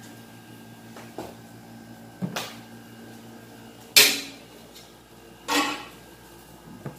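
Kitchenware knocking and clinking: a few sharp knocks spread out, the loudest about four seconds in and another about a second and a half later, each ringing briefly, over a low steady hum.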